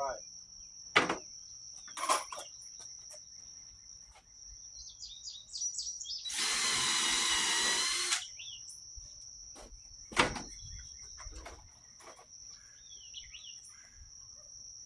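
Power drill running for about two seconds in the middle, driving a screw. A few sharp knocks come before and after it, and birds chirp in the background.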